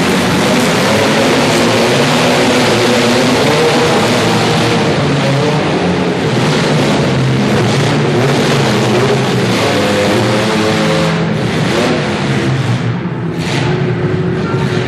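Several compact demolition derby cars' engines running and revving together, overlapping in pitch as the drivers work the throttle. The sound is loud and continuous.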